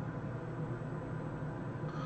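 Steady low hum and hiss of background room noise, with no snore or other event in it.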